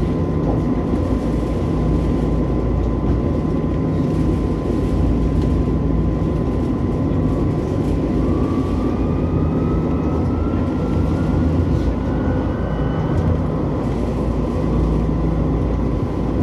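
Eurotram running along its line with a steady low rumble of wheels on rail. About halfway through, the whine of its electric traction drive rises in pitch as the tram picks up speed.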